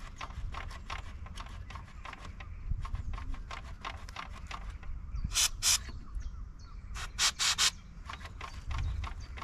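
Aerosol can of lubricating oil spraying in short hisses: two quick bursts about five seconds in, then three more about a second and a half later, oiling a spring contact that turns roughly. A fast, steady ticking runs underneath.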